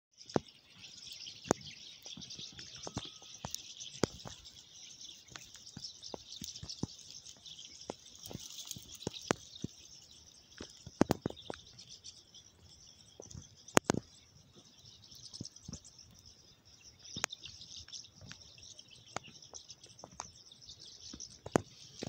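Open-field ambience: a steady high chirping chorus, with frequent sharp clicks and crackles throughout, the loudest about 11 and 14 seconds in.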